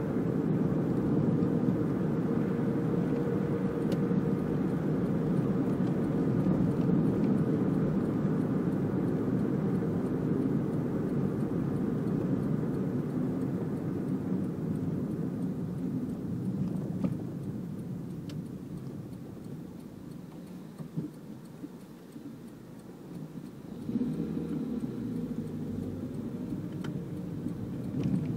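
Steady engine and road noise of a small car, heard from inside the cabin while driving. The noise dies down as the car slows in traffic, then comes back about 24 seconds in with the engine rising in pitch as the car pulls away again.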